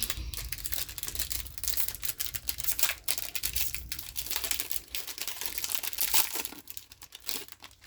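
A card booster pack wrapper being torn open and crumpled by hand: a dense run of crinkling and tearing crackles that thins out near the end.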